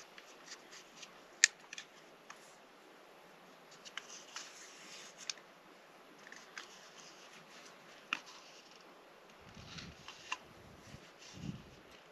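Thread tape being pulled off its roll and wound around the threads of a PVC pipe fitting: faint scattered clicks and crackles of tape and plastic being handled, the sharpest about a second and a half in, with a few low bumps near the end.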